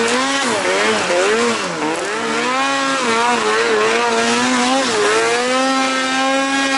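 Two-stroke engine of a 2020 Arctic Cat Alpha One snowmobile being ridden in deep snow, its pitch rising and falling as the throttle is worked on and off, then holding a steadier, higher note from about five seconds in, over a constant hiss.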